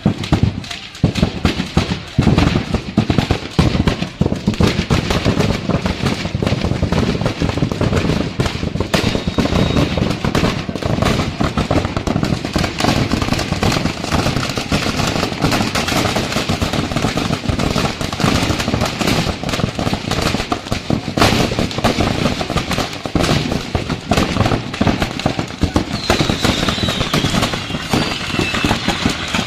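Many firecrackers going off at once in a dense, unbroken rapid crackle and popping: shop stock set off by fire.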